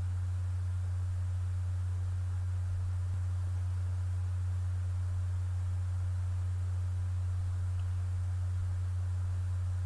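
Steady low electrical hum, a single unchanging tone with nothing else over it.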